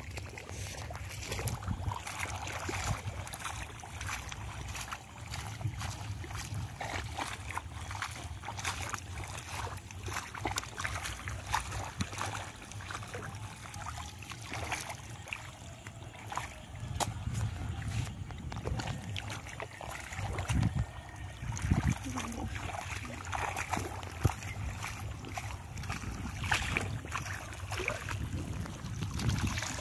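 Rubber boots and gloved hands working in a flooded, muddy rice paddy: repeated splashing and sloshing of shallow water and mud as clumps of weeds are pulled up. A steady low rumble of wind on the microphone runs underneath.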